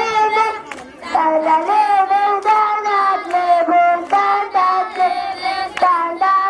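A young child singing a song into a microphone, holding notes that step up and down in a simple tune, with a few scattered hand claps from the children around.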